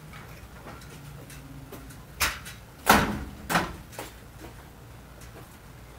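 Split firewood pieces thrown into a horse trailer, landing with three loud wooden knocks a little over half a second apart and a lighter one just after.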